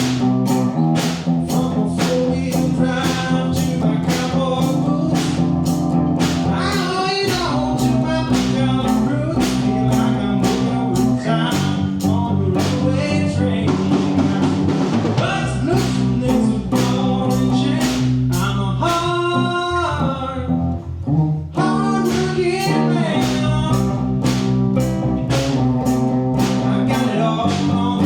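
A song with singing, guitar and drums keeping a steady beat, with a short break in the beat about twenty seconds in.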